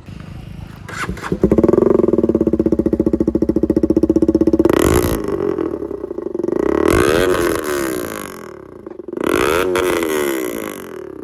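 KTM Duke 200's single-cylinder engine through a loud aftermarket full-system exhaust, starting up about a second in and then running. It is blipped sharply about five seconds in, then revved up and back down twice before settling to idle.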